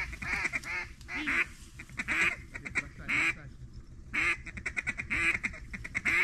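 Mallard-hen quacking, loud and repeated about once a second, with fast chuckling chatter between the quacks.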